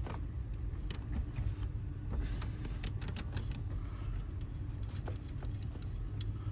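Scattered small metallic clicks and rattles from hand work on a truck's steering column as a replacement ignition switch is fitted over its actuating rod, over a steady low hum.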